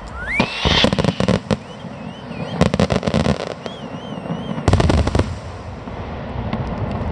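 Fireworks display: volleys of loud bangs and crackling, with a rising whistle in the first second and wavering whistles in the middle.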